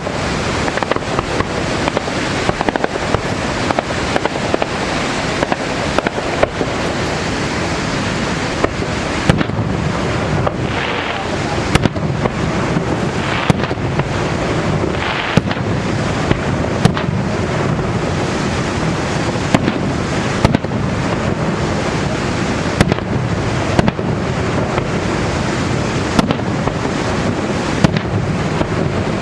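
Fireworks going off, a steady run of sharp bangs and crackles over a constant rushing roar like falling water.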